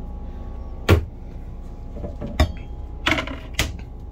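Wooden kitchen cabinet doors being shut and handled: a few sharp knocks and clicks, the loudest about a second in, over a steady background hum.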